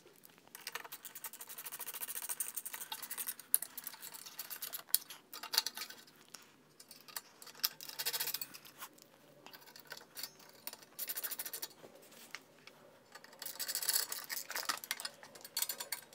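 Ratcheting screwdriver clicking in quick runs, in several bursts with short pauses, as bolts are driven in to fasten a muffler heat shield.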